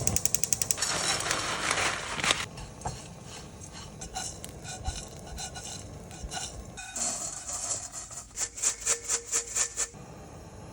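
Kitchen utensils clinking and scraping against a pan and dishes while dried anchovies are prepared for stir-frying. A rapid run of clicks at the start, a stretch of hiss until about two seconds in, then scattered clinks, and a series of sharp clinks near the end.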